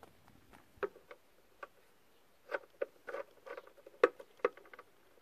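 Irregular light clicks and rattles of a bread maker's plastic casing parts being handled and pushed into place, sparse at first and busier in the second half, with the sharpest clicks about four seconds in.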